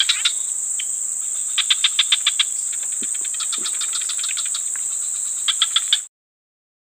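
Insects calling: a steady high-pitched drone with several bursts of rapid, evenly spaced chirping pulses. It cuts off suddenly about six seconds in.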